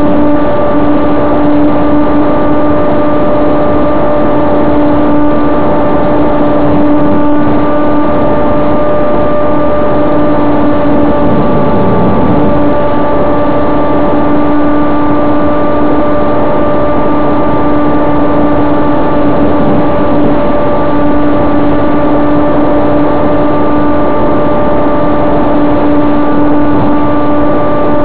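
Foam electric RC airplane's motor and propeller whining loudly at a steady pitch in flight, picked up by a camera taped to the airframe, over a heavy rush of airflow noise.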